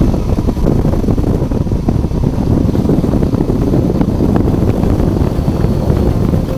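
Rushing airflow buffeting the microphone of a flexwing microlight trike gliding with its engine stopped. It makes a loud, steady wind noise, with no engine sound.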